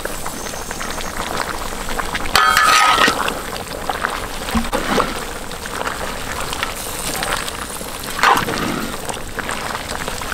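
Chicken and vegetable curry bubbling and sizzling in a large wok over an open fire, a steady crackling simmer, with a couple of brief louder sounds about two and a half and eight seconds in.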